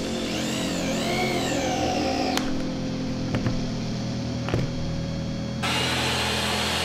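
Cordless drill driving screws into plywood, its motor whine rising and falling in pitch. About two-thirds of the way through, a table saw starts cutting plywood. Background music plays throughout.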